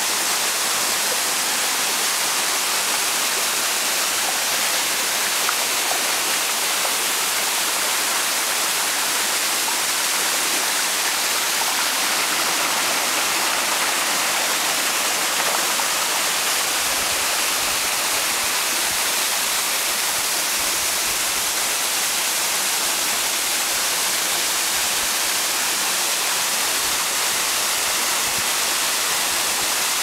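A small waterfall pouring over rock into a pool, with the stream rushing among boulders below: a steady, unbroken hiss of falling and running water. A deeper rumble joins in a little past halfway.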